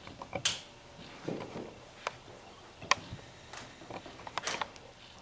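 A few sharp, separate clicks about a second apart over quiet room tone: a hand lighter being flicked to light a Bunsen burner.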